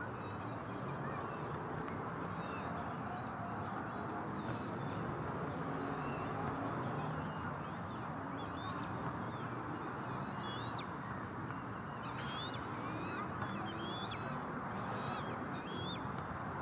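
Canada geese calling, with short high chirping calls that come more often from about halfway through, over a steady rushing background.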